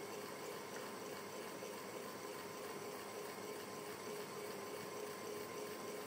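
Electric fan running steadily: an even rush of moving air with a faint steady hum from the motor.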